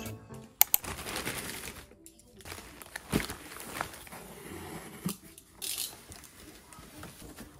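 Plastic mailer bag crinkling and a cardboard box rustling as a parcel is unpacked and its flaps opened, with a few light knocks and a short scraping rip near the end.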